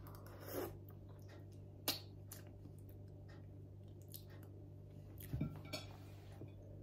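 Faint mouth sounds of eating from a metal spoon and swallowing, with a few light clicks, then a drink from a glass of water near the end. A steady low hum runs underneath.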